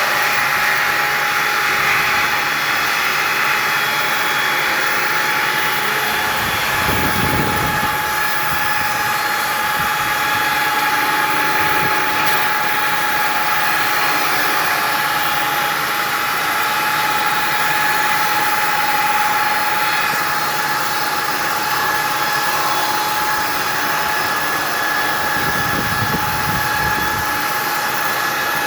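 Cant-making sawmill machine (brusoval) running with a steady high whine, its sound deepening briefly about seven seconds in and again near the end.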